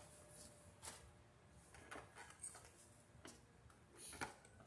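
Near silence with a few faint clicks and scrapes, the loudest near the end: hands working an outdoor LED motion-light fixture into place against the house siding.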